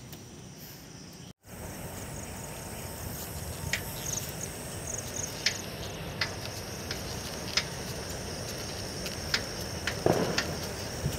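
Crickets chirping steadily over the low rumble of a moving bicycle and wind on the microphone, with scattered sharp ticks. The sound cuts out briefly about a second in.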